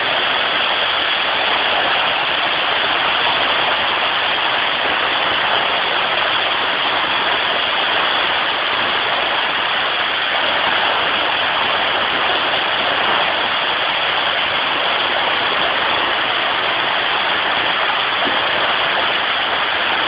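Waterfall pouring close by: a steady, unbroken rush of falling water.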